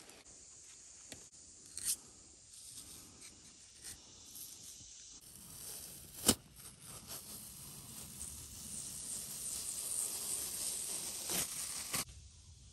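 A knife blade scraping and cutting into white pine bark, then the bark sheet tearing and peeling away from the trunk with a steady rasping noise. A single sharp crack about six seconds in is the loudest sound.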